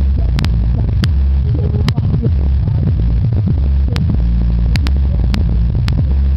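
Subwoofer playing a hip-hop track loudly, its deep bass dominating with rap vocals over it and sharp clicks now and then.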